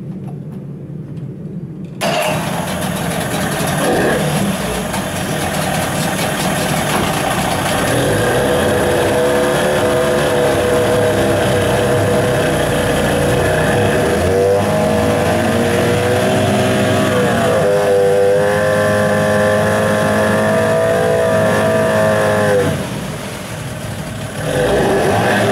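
Warmed-up CG Marine 9.9 hp MAX two-stroke outboard idling, then revved hard about two seconds in. The revs climb and hold, dip briefly midway and climb again, then fall back toward idle near the end before picking up once more. The throttle is being opened and closed to test how the engine picks up, which runs cleanly now that it is warm.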